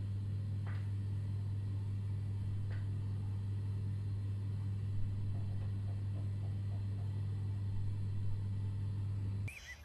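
A steady low hum at one pitch, with a few faint clicks and taps over it. It cuts off suddenly just before the end.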